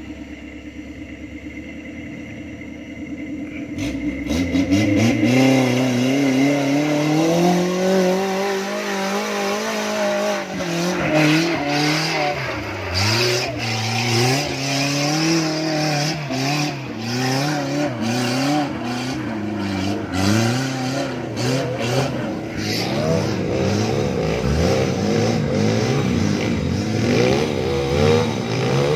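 Off-road tube-frame buggy's engine revving up and down under load as it climbs a rocky track, with clattering knocks from rocks and the frame. It comes in loud about four seconds in, and near the end a trail motorcycle's engine joins.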